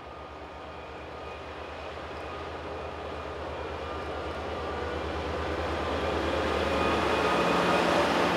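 Diesel locomotive hauling tank wagons approaches and goes by: a steady low engine throb grows louder, and the rolling noise of wheels on rails builds over the last few seconds as the locomotive passes.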